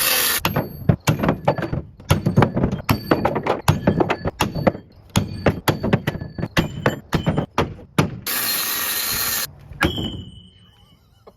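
An impact wrench is run in hard bursts on a stubborn truck-bed bolt, at the start and again near the end. Between the bursts come many sharp, irregular metal knocks. A short metallic ring sounds near the end.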